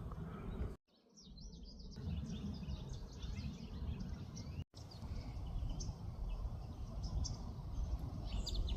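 Small birds chirping and twittering, many short high calls, over a steady low rumble of background noise. The sound drops out for about a second near the start and again very briefly a few seconds later.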